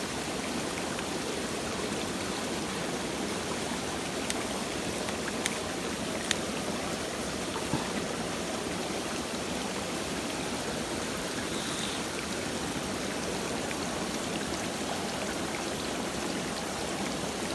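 Mountain stream water rushing steadily, with a few faint ticks.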